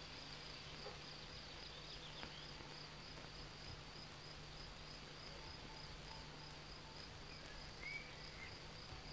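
Crickets chirring faintly and continuously in a high, evenly pulsing trill, over a low steady hum. A single short bird chirp comes near the end.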